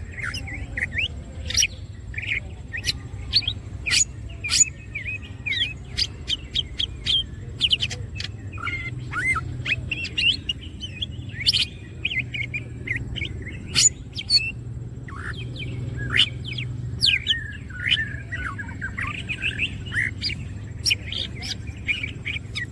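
Green leafbird (cucak ijo) singing in full song: a rapid, varied run of sharp chirps, whistled sweeps and trills, over a steady low hum.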